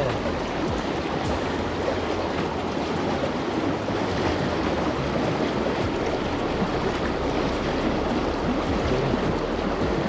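Shallow mountain river running over a stony riffle: a steady, even rush of water.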